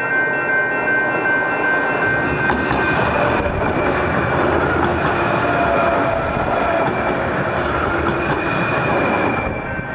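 Valley Metro light rail train passing close by at track level. The rumble of wheels on rail swells about two and a half seconds in and carries on as the cars go by, with a few clicks. It cuts off suddenly near the end.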